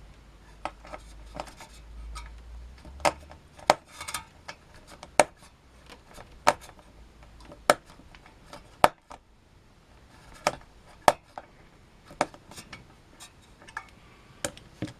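Sharp metallic clicks and light taps, about one a second at an irregular pace, as a screwdriver works the mounting screws of a CPU heatsink into place.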